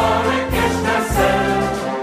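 Carnival (Fasnet) song: a group singing over band music with a steady beat.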